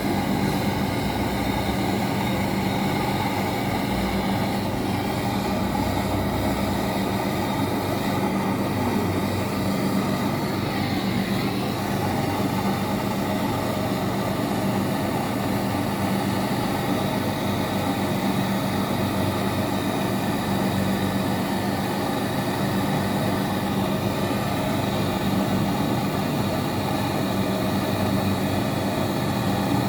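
Steady drone of running air-conditioning machinery: an even, fan-like rush over a constant low hum.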